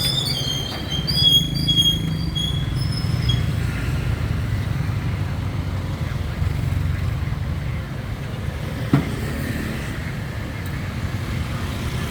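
A motor running steadily with a low rumble, with a quick series of high-pitched squeaks during the first three seconds and a single sharp click about nine seconds in.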